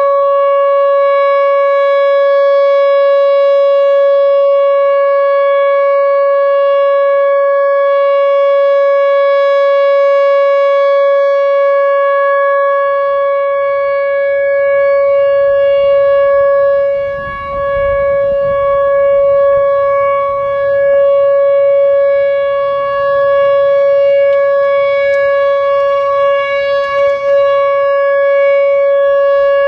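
Whelen Vortex R4 electronic outdoor warning siren sounding its steady alert signal for a county siren test: one loud, unwavering tone, dipping briefly in loudness about two-thirds of the way through.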